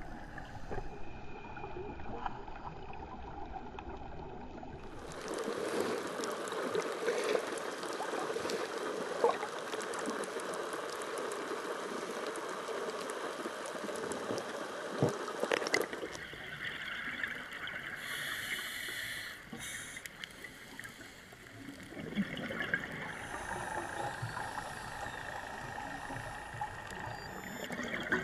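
Underwater sound picked up by a camera in a waterproof housing: muffled water movement and bubbling, with no music. The sound changes abruptly about five and sixteen seconds in; between those points it is a louder, brighter hiss with scattered small clicks.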